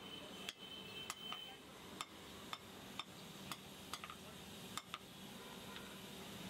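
Hand hammer striking a glowing piece of rebar on a steel block anvil, a string of sharp metallic blows at an uneven pace of roughly one to two a second, as the hot bar is forged.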